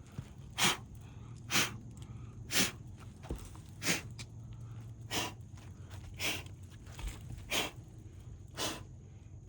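Short, sharp puffs of breath, about one a second and eight in all, blowing loose chalk dust off roof shingles.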